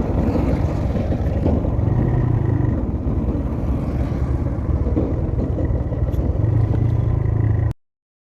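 Motorcycle engine running under way, with road and wind rumble, heard through a mic mounted inside the rider's helmet. The sound cuts off abruptly near the end.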